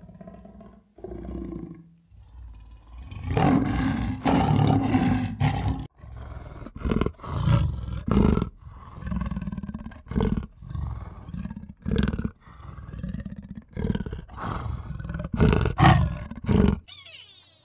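A wild animal roaring: one long, loud call about three seconds in, then a run of shorter calls.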